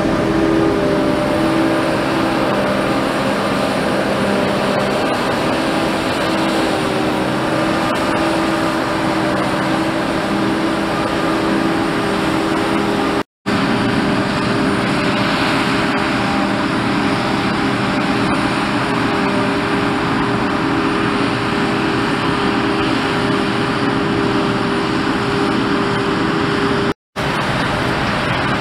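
Claas 860 forage harvester and a tractor pulling a trailer alongside, engines running steadily under load while the harvester chops maize: a constant, loud mechanical drone. The sound drops out briefly twice, about halfway through and near the end.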